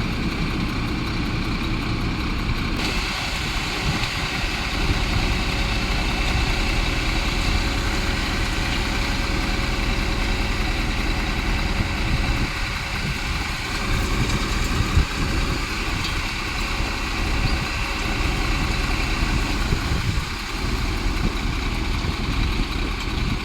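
Kobelco excavator's diesel engine running steadily, with a steady high whine joining about three seconds in.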